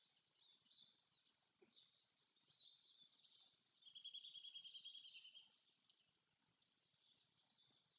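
Very faint forest birdsong: scattered high chirps, with a rapid trill lasting just over a second about four seconds in.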